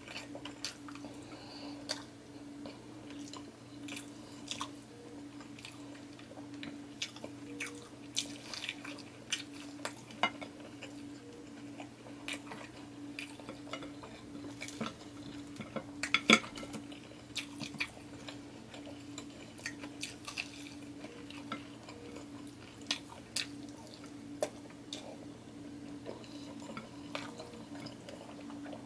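Close-up eating sounds of fried pork chop and rice eaten by hand: chewing and mouth sounds with many scattered sharp clicks and taps of fingers and food on ceramic plates, the loudest about halfway through. A steady low hum runs underneath.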